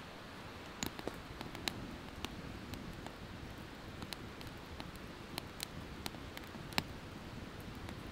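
Sticks burning in a small folding steel firebox stove, crackling with sharp, irregular pops over a low steady hiss. The crackling starts about a second in.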